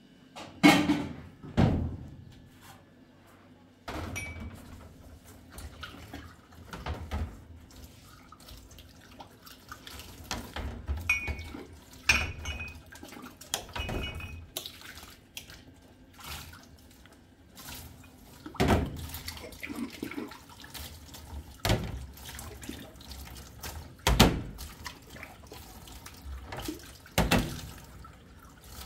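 Washing up at a kitchen sink: tap water running and splashing while dishes and drinking glasses are rinsed, with repeated clinks and knocks as they are handled and set down. A few of the clinks ring briefly like glass.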